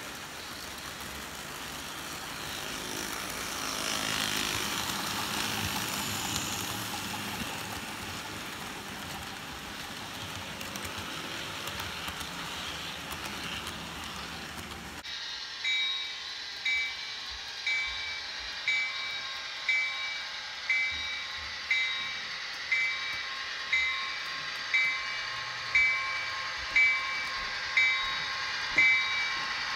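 Model freight train cars rolling past on the track with a steady rushing rumble. About halfway through this gives way to the sound unit of a model BNSF diesel locomotive ringing its bell, about one strike a second, as it approaches.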